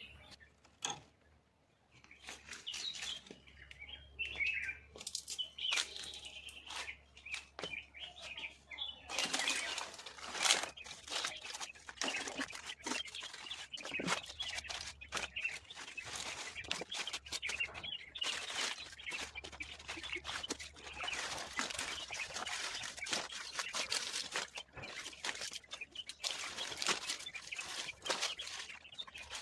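Small birds chirping, then from about nine seconds on a dense, continuous run of quick wing flutters and rustles as birds come in to the water.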